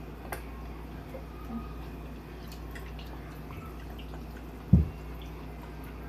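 Fish sauce dripping slowly from a small-holed bottle into a pot of beef broth: faint small drips and ticks over a steady low hum. A single short, heavy low thump sounds about three-quarters of the way through.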